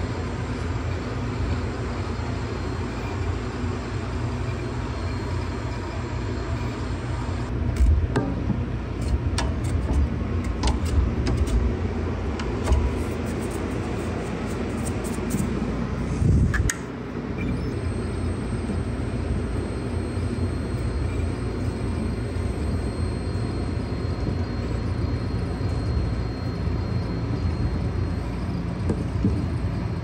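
Cue lathe running steadily with a low rumble while turning a pool cue butt, with a run of clicks and knocks near the middle.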